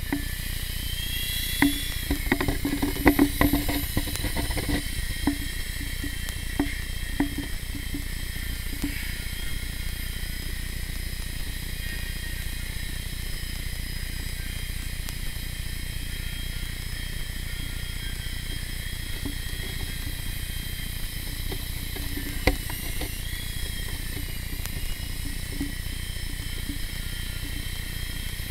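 High-pitched electric whine of a Blade mCX Tandem Rescue micro tandem-rotor RC helicopter's motors and rotors as it flies, the pitch dipping and rising with throttle. A run of clicks comes in the first few seconds, and a single sharp click comes about 22 seconds in.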